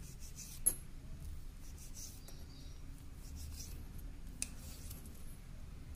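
Kitchen knife slicing through a rolled log of soft dough and tapping the stone counter: a few faint cuts, with a sharp click about two-thirds of a second in and another near four and a half seconds.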